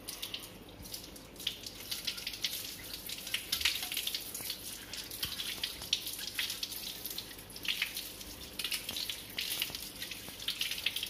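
Water from a kitchen tap running and splashing as a stainless steel mesh tea strainer is rinsed under the stream, the splashing rising and falling unevenly as the strainer is turned in the water.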